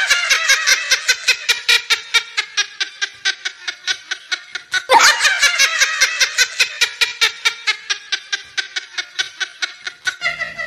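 High-pitched laughter, a long run of quick 'ha-ha-ha' pulses at about six a second, breaking out afresh about five seconds in, typical of a laugh sound effect.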